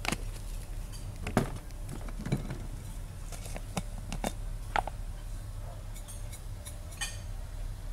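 Irregular light clicks and knocks from handling kitchen containers: a plastic jar with a red screw lid being opened and closed and a glass bottle being turned in the hands, over a steady low background rumble.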